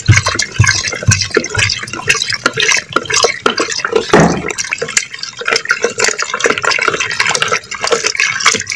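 Watery cream, buttermilk and ice sloshing and splashing in a clay pot during home butter-making, with many small irregular splashes and one louder splash about four seconds in.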